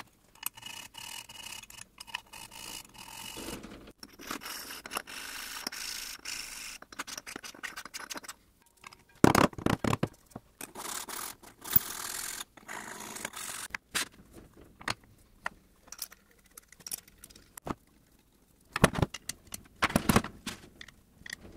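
Steel vise parts being worked by hand: scraping and rubbing as the fixed jaw's key is deburred, with scattered sharp clicks and knocks as parts are handled and set down. The sounds come in short separate stretches with a few brief silent gaps between them.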